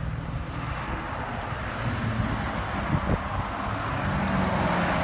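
A 2015 Chevrolet Camaro's V6 idles with a steady low hum, which fades about half a second in. A rushing hiss then builds, with a single knock about three seconds in.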